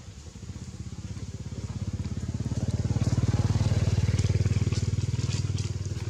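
A motor vehicle engine passing by, its low, rapidly pulsing note growing louder to a peak in the middle and then fading away.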